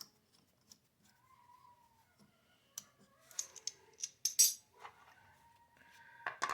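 Light metallic clicks and jingles of tools and small engine parts being handled, in scattered bursts with the loudest cluster about three to four and a half seconds in.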